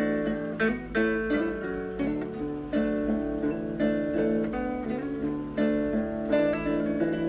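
Background music of plucked acoustic guitar, playing a steady picked or strummed pattern.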